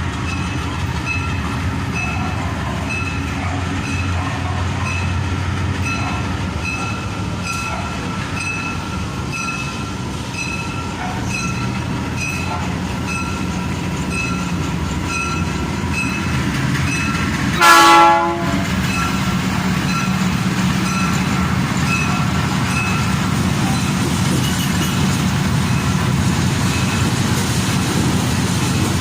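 GE U20C diesel-electric locomotive's twelve-cylinder diesel engine running steadily, with a faint regular tick a little under twice a second. A single short horn blast sounds about two-thirds of the way through, and the engine is a little louder after it.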